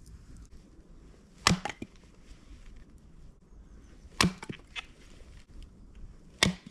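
Freshly sharpened axe chopping into wood: three sharp strikes about two seconds apart, each followed by a few lighter knocks.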